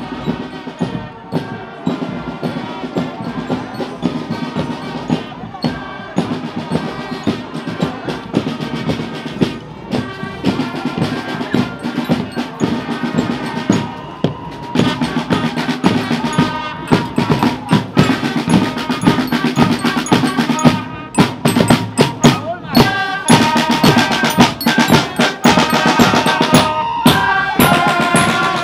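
Parade band playing, with bass drum and snare drum beating over held brass tones; the drumming grows louder and busier in the second half.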